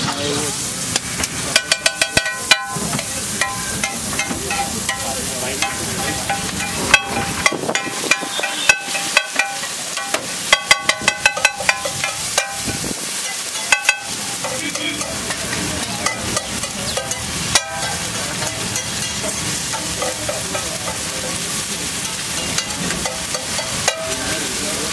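Metal spatula chopping and scraping a scrambled egg mixture on a large flat iron griddle (tawa), in several quick runs of ringing metallic strikes, over steady sizzling of egg frying in oil.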